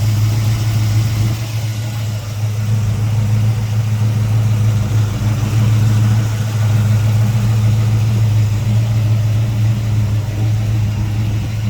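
Fresh Blueprint 355 small-block Chevy V8 crate engine in a 1940 Chevrolet street rod idling steadily, with an even low hum.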